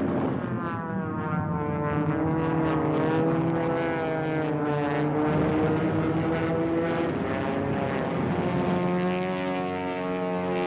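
Piston engines of propeller warplanes droning, with several pitches sliding slowly up and down. A lower, steadier tone takes over about nine seconds in.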